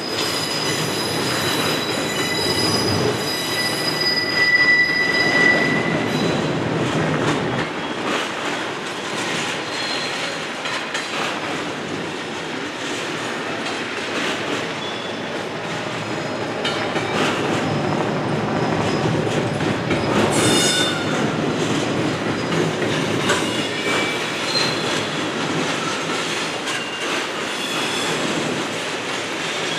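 Double-stack intermodal container cars rolling past on steel rails, a continuous rumble and rattle of wheels and cars. Thin high wheel squeal rings over the first few seconds, and there is a brief sharper squeal about twenty seconds in.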